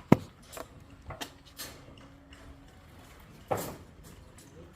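Concrete wall panel being handled, its edge crumbling: a sharp snap, then a few lighter knocks and a short scrape about three and a half seconds in.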